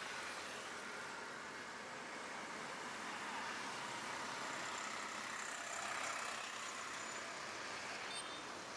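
Steady outdoor street ambience: a continuous hum of distant road traffic, with no single vehicle standing out.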